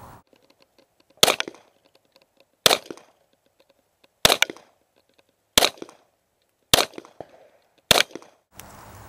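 Six pistol shots fired at a slow, steady pace, about one every second and a half, each trailing off in a short echo.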